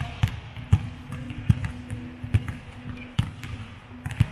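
Basketball bouncing on a court floor: about six low thuds, unevenly spaced half a second to a second apart.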